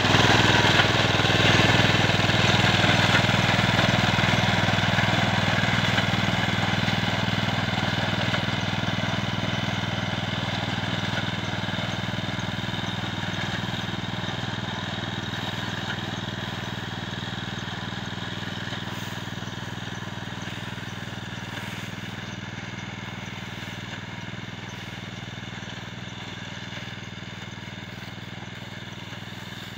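The engine of a BCS ride-on wheat reaper running steadily as it cuts standing wheat, fading gradually as the machine moves away.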